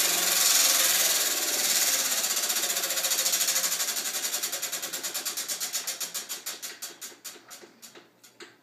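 Prize wheel spinning down: its pointer ticking against the pegs in a fast rattle that slows into separate clicks, fading and spreading out until the wheel stops near the end.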